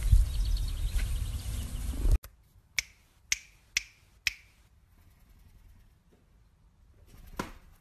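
A low rumble on the microphone for about two seconds, cut off suddenly, then five sharp snapping clicks about half a second apart and a fainter click near the end.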